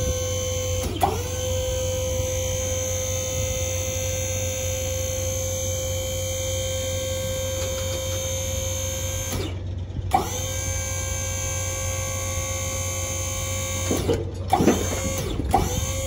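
Hydraulic pump of a dump trailer running with a steady whine as it raises a bed heavy with logs. The pump cuts out and restarts about a second in, about ten seconds in, and twice near the end, each time winding back up to pitch.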